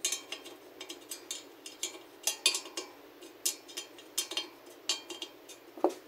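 A spoke wrench working on the stainless steel spokes and nipples of a dirt bike wheel: irregular sharp metal clicks and clinks as the nipples are turned during truing, with a heavier knock near the end.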